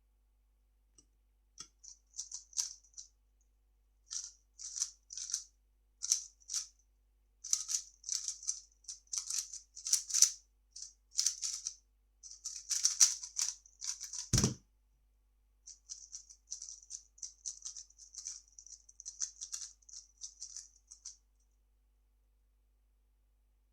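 3x3 speedcube being turned fast, its layers clicking and rattling in quick bursts. About halfway through there is one sharp thump, then lighter clicking turns resume.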